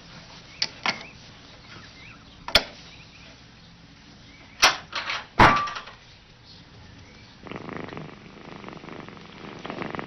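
Clicks and sharp knocks of a cat working the latch and door of a puzzle box, the three loudest knocks around the middle, the last with a brief ring. A cat purring starts about three-quarters of the way in.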